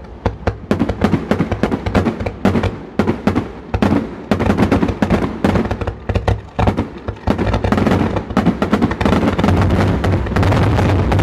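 Aerial fireworks shells bursting in a rapid, continuous string of bangs and cracks, several a second, over a low rumble.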